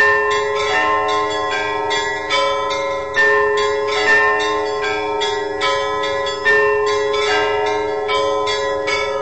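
Church bells ringing a busy peal: several bells struck in quick, uneven succession, their tones overlapping and ringing on.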